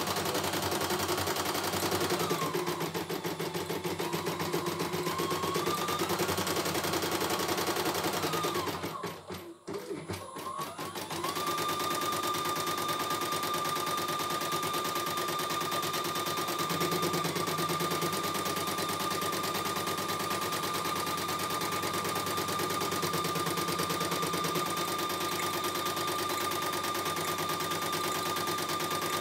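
CNY E900 computerized embroidery machine stitching a design: rapid needle chatter over a motor whine that rises and falls at first. It stops briefly about nine seconds in, then stitches on steadily with an even whine.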